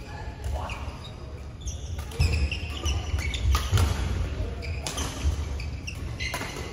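Badminton play on an indoor court: sneakers squeaking on the court mat and footfalls thudding, with a few sharp racket hits on the shuttlecock.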